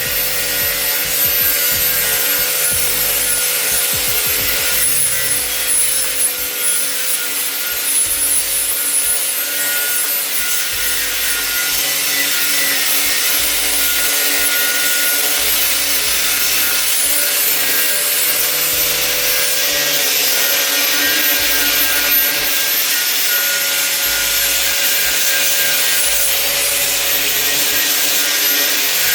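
Power tool grinding steadily against the surface of a cast-iron pot lid, a continuous rasping over a steady motor whine.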